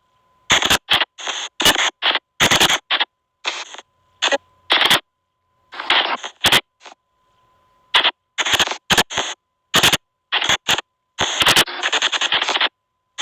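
SP White Noise Box spirit box app putting out short, choppy bursts of hiss in quick succession, broken by brief gaps, over a faint steady high tone.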